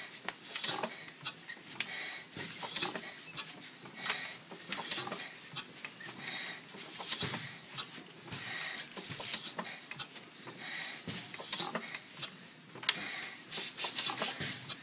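Antique 4 hp International Harvester Mogul hit-and-miss gasoline engine being cranked over by hand at the flywheel, a regular puffing clatter about once every second or less as it comes round on compression.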